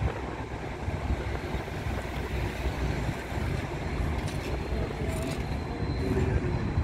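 Steady low rumble of a moving car's road and wind noise, with wind buffeting the microphone.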